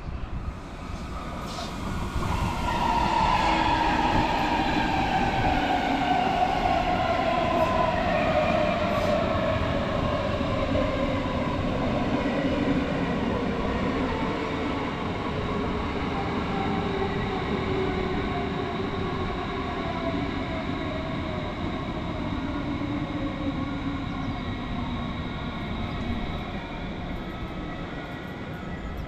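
DB Class 430 S-Bahn electric multiple unit pulling into the station. Its traction motors whine, and the whine falls steadily in pitch as the train slows. Under it is a steady rumble of wheels on the rails.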